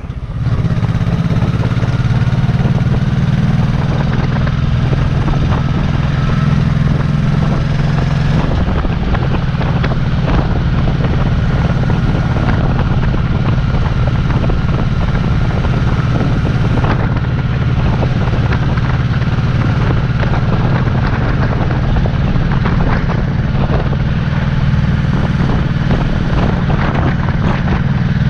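2006 Honda Shadow Sabre's 1100 cc V-twin engine running steadily at cruising speed, heard from the rider's seat. The engine note drops a little about eight seconds in.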